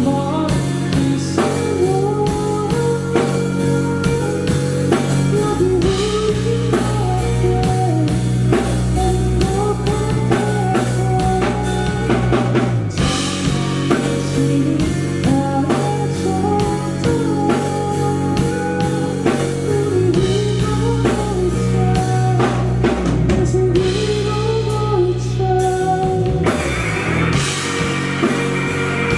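Live rock band playing an instrumental break: a wavering lead melody over bass and drums. Near the end the band shifts into a fuller, harder section with cymbals.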